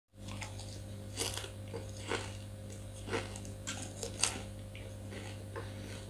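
A person chewing fresh betel leaves: irregular crisp crunches, several a few seconds apart, over a steady low hum.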